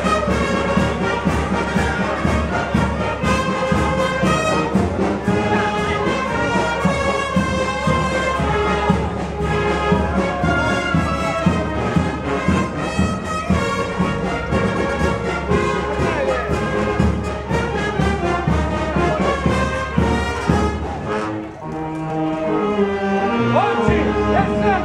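A brass band playing, full and steady, as it accompanies a street procession. Near the end the playing thins out briefly to a few low notes before the full band comes back in.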